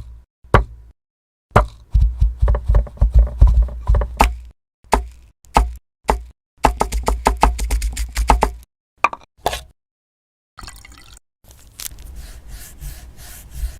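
Stop-motion sound effects of small hard plastic pieces clicking and knocking in quick runs, in short bursts that cut off abruptly into silence. Near the end, a quieter steady hiss.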